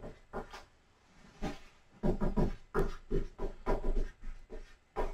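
Dry-erase marker squeaking and scraping on a whiteboard in many short strokes as words are written, sparse at first and denser and louder from about two seconds in.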